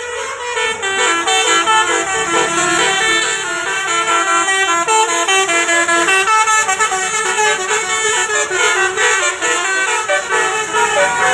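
A bus's telolet basuri musical horn playing a fast tune: several horn tones sounding together, stepping quickly from note to note.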